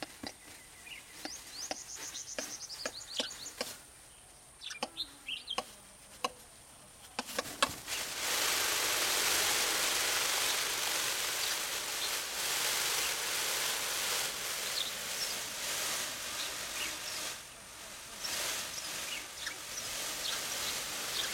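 Male green peafowl displaying with its train raised. In the first seven seconds there are scattered dry clicks and a few short high bird chirps. Then, about seven seconds in, a loud, steady, hissing rattle starts suddenly and lasts to the end: the sound of the fanned train being shaken.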